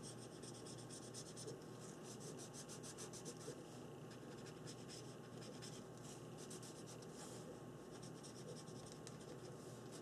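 Green India ink pen scribbling over paper in quick back-and-forth strokes, a faint rapid scratching in runs with short pauses between them.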